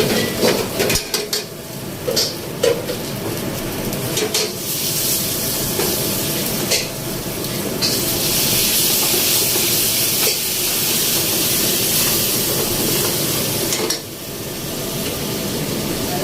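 Food frying in a pan, with a utensil clinking and scraping against the pan in the first few seconds. A loud sizzling hiss then sets in about four seconds in, dips briefly near the end and picks up again.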